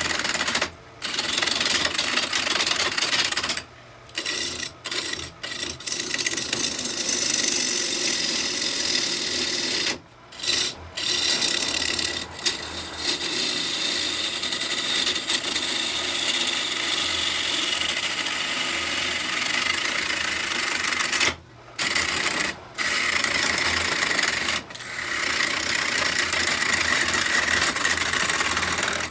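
A bowl gouge cutting into a spinning locust blank on a wood lathe: a continuous rough shearing hiss of wood being roughed out, broken by several short pauses where the tool comes off the wood.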